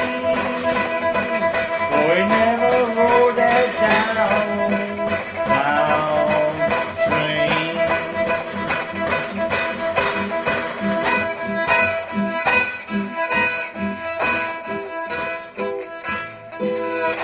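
Instrumental close of a folk song: a fiddle playing sustained and sliding notes over plucked-string accompaniment.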